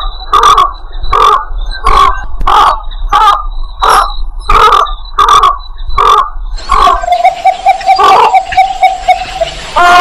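Bird-call lure recording of the belkok sawah: a loud call note repeated about every two-thirds of a second, some ten times, then about seven seconds in a long steady tone with a few more notes.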